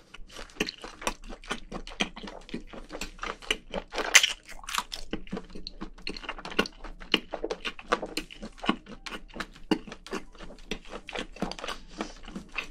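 Close-miked chewing of spicy braised seafood: a steady run of wet clicks and smacks, several a second, with a louder crunch about four seconds in.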